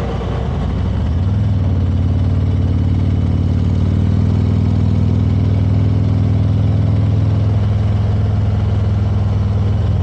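Touring motorcycle's engine running steadily at cruising speed, heard from the bike with road and wind noise. The engine note grows stronger about a second and a half in and then holds an even pitch.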